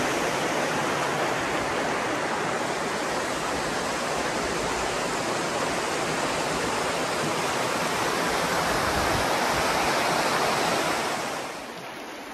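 Rushing water of the Virgin River flowing over rocks, a steady hiss that drops in level near the end.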